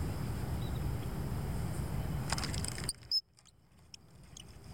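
Low wind rumble buffeting the microphone, with a few light clicks; the rumble cuts off abruptly about three seconds in, leaving the sound much quieter.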